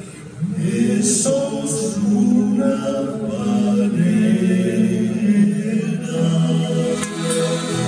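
A havanera sung by a vocal group in harmony, the voices holding long notes and coming in again just after a brief dip at the start.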